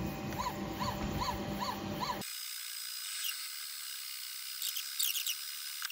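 AlgoLaser DIY Kit MK2 diode laser engraver scan-engraving, its stepper motors whirring in short rising-and-falling tones about two and a half times a second as the head sweeps back and forth, over a steady hum. About two seconds in the sound thins abruptly to high hiss with a few brief whirrs.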